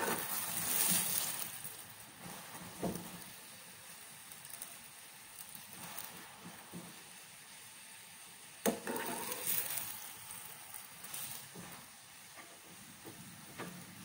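Chapati frying in oil in a frying pan: a soft sizzle that swells near the start and again about nine seconds in. A sharp knock comes just before the second swell.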